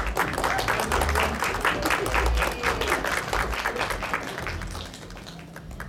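A small crowd applauding with many quick hand claps that die away about five seconds in.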